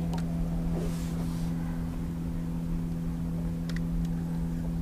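Steady low motor hum over a faint low rumble, with a couple of faint clicks near the end.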